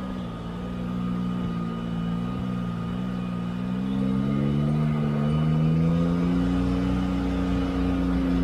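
Can-Am Maverick R side-by-side's engine running steadily while driving, its pitch rising gradually about halfway through and holding higher.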